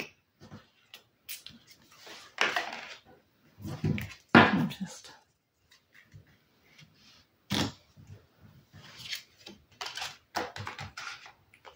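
Tarot cards being flipped and slid off the deck onto a wooden table: rustles of cardstock and several sharp clicks as cards are laid down, with a few quiet spoken words in between.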